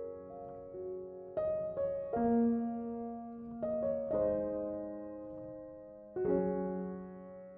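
Slow, soft piano background music: chords struck every second or two and left to ring and fade.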